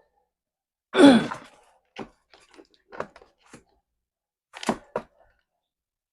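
Electric kettle parts being handled during a repair: a louder creaking scrape about a second in, then several short, light clicks and knocks of plastic and metal.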